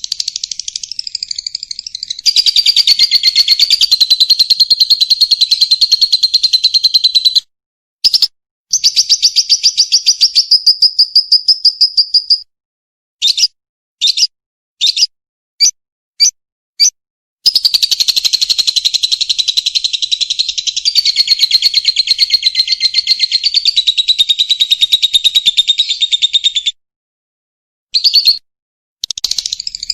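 Lovebird singing a long, very rapid, high chattering trill, the non-stop 'gacor' song. The long runs break off abruptly a few times, with a stretch of short separate bursts in the middle.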